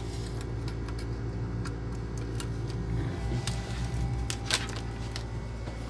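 Steady low hum of a noisy Kelvinator window air conditioner, with scattered light clicks and rustles of speaker cables being handled.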